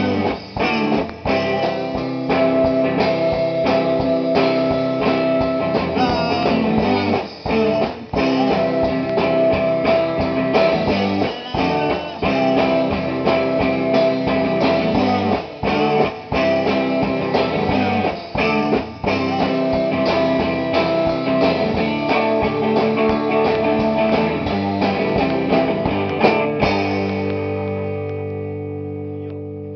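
A rock band rehearsing, with guitars playing a full-band song that ends about 27 seconds in on a final chord, left ringing and fading away.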